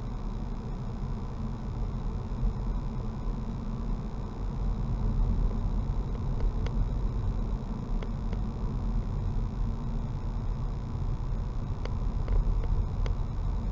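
A car's engine and tyre rumble heard from inside the cabin, low and steady as it drives slowly along a narrow lane, with a faint steady high whine and a few faint clicks near the middle and again near the end.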